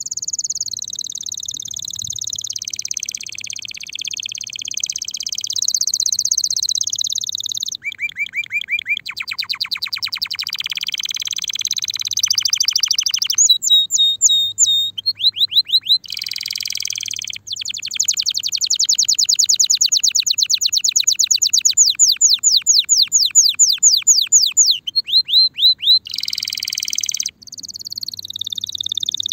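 Spanish Timbrado canary, a male in breeding condition, singing a long continuous song of trills and rolls, each a fast run of repeated notes, the pattern changing every few seconds with brief breaks between phrases.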